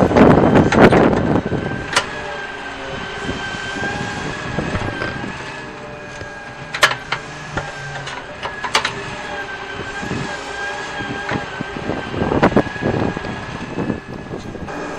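Radio-controlled model excavator working: its small electric motor gives a steady, slightly wavering whine, broken by sharp clicks and short scraping bursts of sand and gravel, loudest at the start and again about twelve seconds in.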